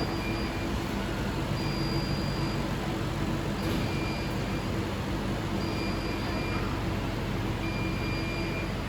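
A machine running steadily, a constant rushing noise with a steady hum under it. A faint high-pitched tone comes and goes about every two seconds.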